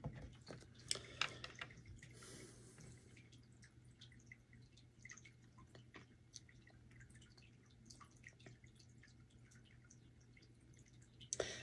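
Near silence: room tone with a faint steady hum and scattered faint ticks.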